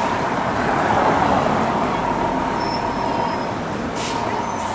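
Heavy road vehicle running amid steady city traffic noise, with a faint steady high tone and a brief hiss about four seconds in.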